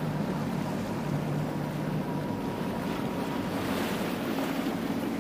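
Outboard engine of an inflatable motorboat running steadily, a low even hum under wind on the microphone and water noise.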